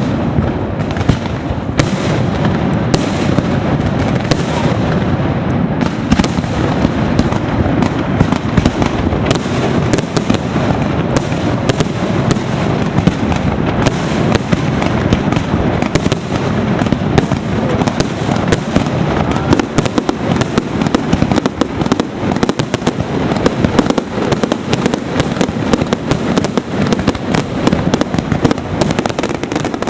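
Aerial firework shells and comets bursting in a dense, continuous barrage: overlapping bangs and rapid pops with no let-up.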